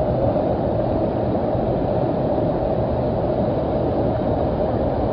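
Floodwater rushing in a fast torrent across a street: a loud, steady rushing noise.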